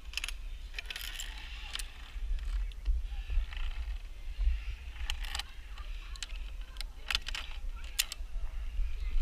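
Metal climbing carabiners clinking and rattling against a steel safety line, a few sharp clinks, several in quick pairs, over a low wind rumble on the microphone.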